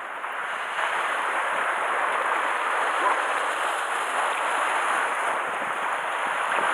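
Sea surf washing against shoreline rocks: a steady rush of water.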